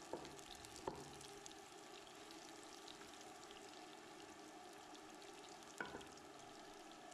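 Sliced red onions frying gently in oil in a nonstick pot, a faint steady sizzle. A wooden spatula stirring them knocks against the pot twice near the start and once near the end.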